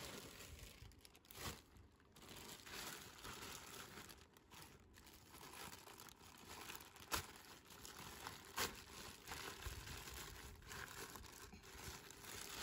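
Plastic mailer bag crinkling and rustling as it is handled and pulled open by hand, with a few sharper crackles; the loudest comes about seven seconds in.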